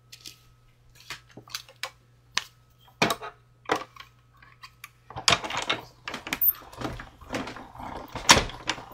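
Taps and clacks of plastic cutting plates and metal dies being handled and set down on a manual die-cutting machine. The handling gets busier about five seconds in, with one sharp clack near the end.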